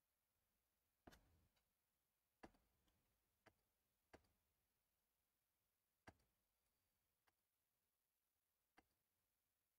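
Near silence: room tone broken by about seven faint, sharp clicks at irregular intervals.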